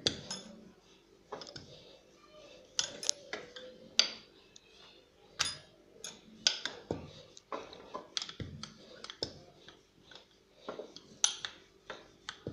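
Wooden rolling pin rolling out a sheet of stiff dough on a wooden rolling board, giving irregular light clicks and knocks as pin and board shift.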